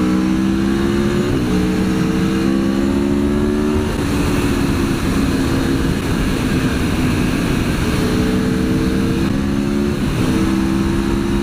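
Aprilia Tuono V4 1100's V4 engine accelerating, its pitch climbing and then dropping sharply at an upshift about a second in. It holds steady for a few seconds, then climbs again to a second upshift near the end. Heavy wind rushes over the microphone, which has no wind deflector.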